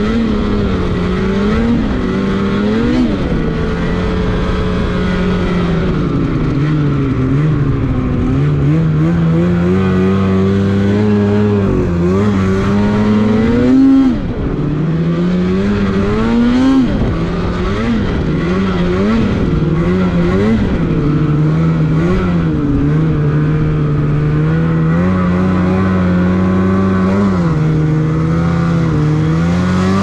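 Snowmobile engine running at speed on a snowy trail, near 5,900 rpm, its pitch rising and falling over and over as the throttle is worked, climbing again near the end.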